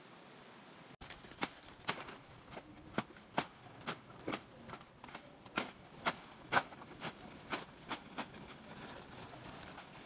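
Footsteps crunching through dry leaf litter and twigs on the forest floor: an irregular run of sharp crackles, about two a second, starting about a second in and dying away near the end.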